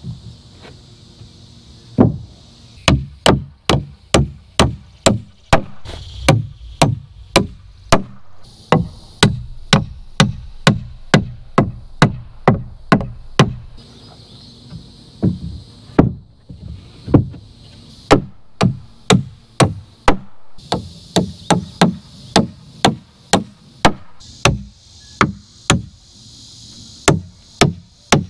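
Claw hammer driving nails into wooden wall-framing lumber: runs of sharp strikes, about two or three a second, broken by short pauses.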